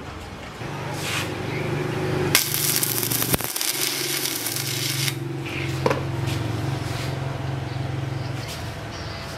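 Stick (arc) welding on steel: the arc crackles and hisses for about three seconds, over a steady low hum that starts about half a second in and stops near the end.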